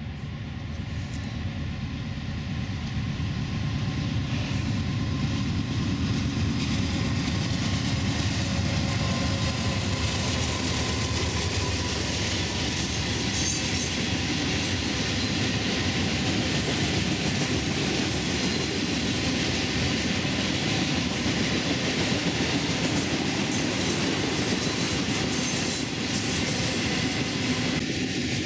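BNSF diesel-hauled freight train passing close by: the noise grows over the first few seconds as the locomotives come up, then holds as a steady din of freight-car wheels rolling over the rails.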